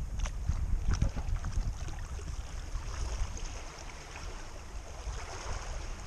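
Wind buffeting the microphone with an uneven low rumble, over small sea waves lapping and splashing gently, with a few short crackling splashes in the first second or so.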